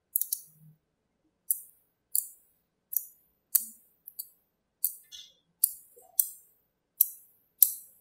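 Small magnetic balls snapping together by hand as clusters are joined into a larger ball: a string of sharp clicks, irregularly spaced, one or two a second.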